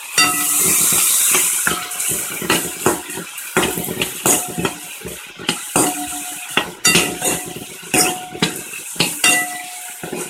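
Metal spoon stirring chopped tomatoes in a small frying pan, with many sharp clinks against the pan that ring briefly. A loud hiss lasts about a second and a half near the start.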